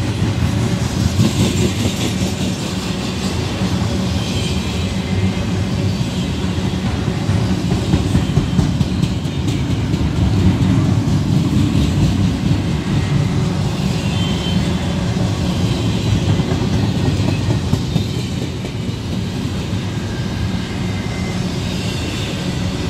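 A Norfolk Southern intermodal train's double-stack container cars rolling past at close range: a steady heavy rumble of wheels on rail, dotted with many quick clicks. It swells a little near the middle and eases slightly toward the end.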